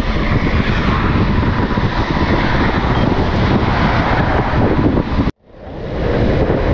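Strong wind buffeting the microphone of a handlebar camera on a moving bike: a loud, steady rumble. About five seconds in it cuts out sharply, then swells back within a second.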